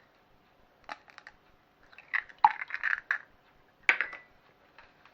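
An egg being tapped and cracked open against a jug, eggshell crackling. A single tap about a second in, a run of crisp crackles with a sharper knock at about two and a half seconds, and another sharp knock near four seconds.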